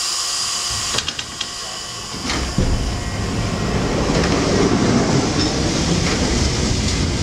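Lisbon Remodelado electric tram running on street rails: a high hiss at first, a few sharp clicks about a second in, then a low rumble that grows louder from about two and a half seconds in.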